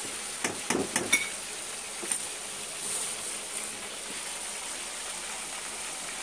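Chicken pieces deep-frying in a pot of hot oil, a steady sizzle, with a few sharp clinks in the first second or so.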